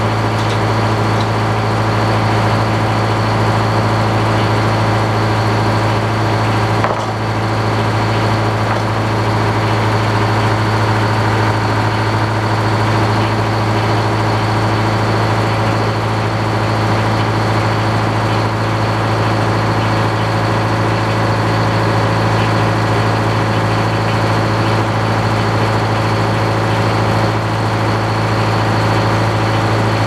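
Antique circular sawmill running without cutting: a steady machine drone as the drive and large circular blade spin free. There is a brief dip about seven seconds in.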